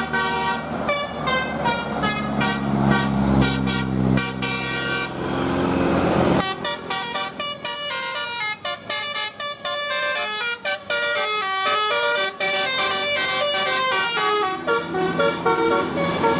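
Bus 'telolet' multi-tone air horns playing quick melodic tunes, note after note. About six seconds in the sound changes abruptly to a different, faster horn tune.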